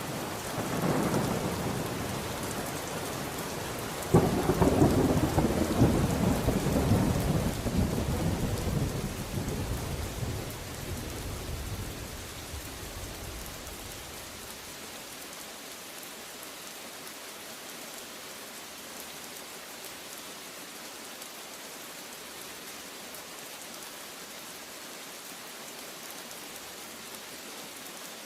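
Thunderstorm: steady heavy rain with a roll of thunder at the start, then a louder crack about four seconds in that rumbles on and dies away over the next ten seconds, leaving only the rain.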